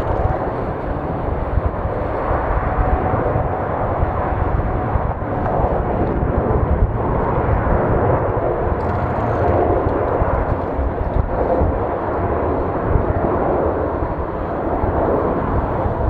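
Jet airliner engine noise, a loud, steady rush with deep rumble and a faint steady whine.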